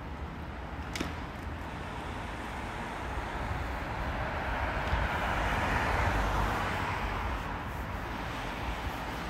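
A car passing by on a city street: its tyre and engine noise swells to its loudest about six seconds in, then fades away.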